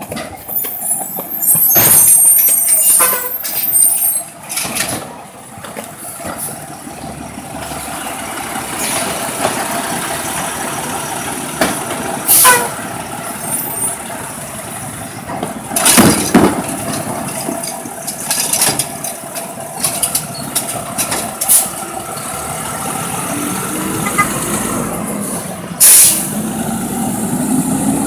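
Side-loader garbage truck: clanking in the first few seconds, then its engine running steadily as it pulls away, broken by a few short, sharp air-brake hisses.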